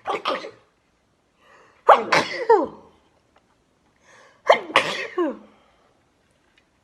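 A person sneezing twice in a row, brought on by powder. Each sneeze is a short intake of breath, then a loud voiced sneeze whose pitch falls away. The two are about two and a half seconds apart, and the tail of an earlier sneeze ends right at the start.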